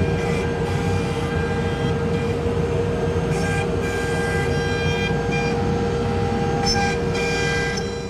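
Axiom Pro-8 CNC router cutting wood: the router spindle runs with a steady whine while the bit's cutting noise comes and goes in short higher-pitched stretches.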